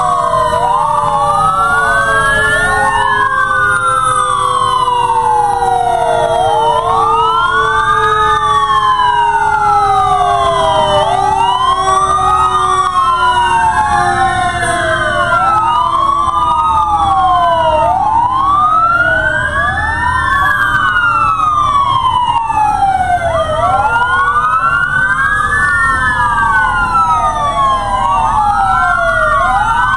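Several fire engine sirens wailing together, out of step with one another, each rising and falling about every five to six seconds, over the low rumble of the fire trucks' engines as they roll slowly past. A steady tone slides slowly lower in pitch beneath the wails.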